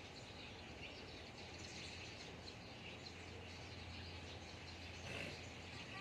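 Faint outdoor garden ambience: birds chirping in the trees over a low steady hum, with a brief louder noise about five seconds in.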